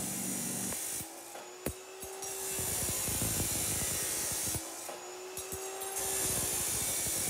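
Abrasive chop saw cutting through steel bar stock, its cut-off wheel grinding the steel with a loud hiss in two spells, the second starting about six seconds in, over the steady hum of the saw's motor.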